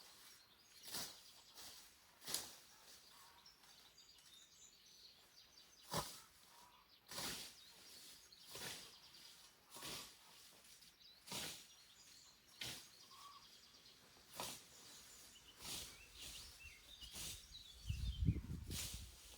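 Hand scythe swishing through tall grass in steady strokes, about one every second and a half, with faint bird chirps between them. Near the end there is a louder low thud.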